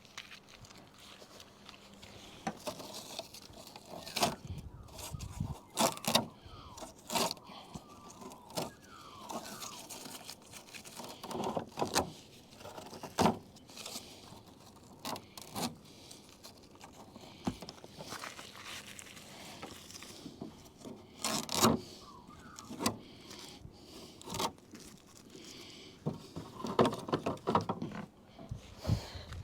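Scattered clicks, knocks and scrapes of hand work on a small car's rear mudguard, irregular and with no machine running.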